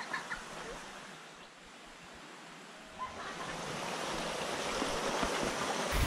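Rushing stream water, a steady hiss that grows louder from about halfway through.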